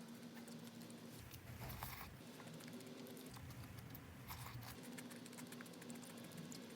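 Faint sounds of eating and handling food: many small clicks and rustles, with louder crinkly, crunchy bursts about two seconds in and again about four and a half seconds in.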